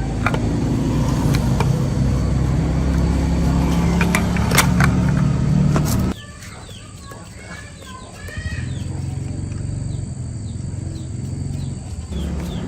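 A machine's motor running with a steady low hum and a few sharp clicks, cutting off suddenly about six seconds in. Birds chirp in the lull, and a quieter hum starts up again near the end.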